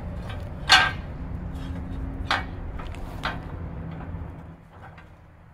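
Sharp knocks and clanks from an aftermarket skid plate and its bolts being handled under a dirt bike's engine. The loudest comes about three-quarters of a second in, with more near two and three seconds. Under them runs a low rumble that fades out near the end.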